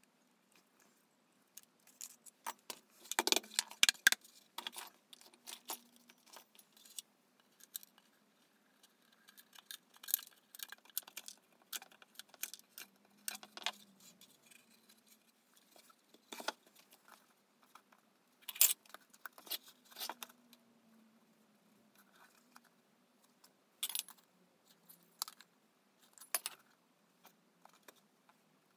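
Workbench handling noise: scattered clicks, taps and light knocks as tools and the pallet-wood birdhouse box are picked up, turned and set down, with a cluster of louder knocks a few seconds in.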